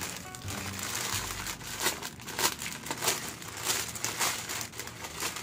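Clear plastic packaging crinkling and crackling as it is handled and opened by hand, in quick irregular crackles.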